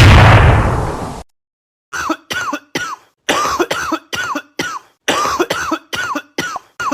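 A loud, distorted cough-like blast that fades out over about a second, then after a short gap the same short cough sample repeated about three times a second in a chopped, looping rhythm.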